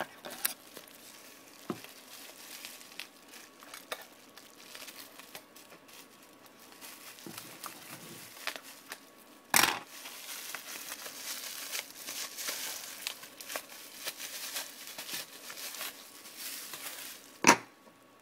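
Clear plastic packaging crinkling and crackling as it is worked off a fingerboard rail by hand. A sharp knock about halfway through, and a louder one near the end as the metal rail is set down on a wooden table.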